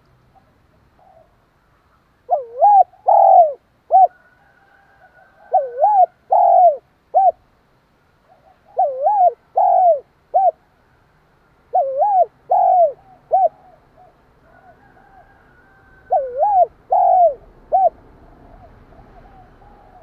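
Spotted dove cooing its song: five phrases of about four short, looping coos, the last note of each clipped short, repeated every three seconds or so with a longer pause before the last. This is the quick, insistent song of a decoy dove used to provoke wild doves.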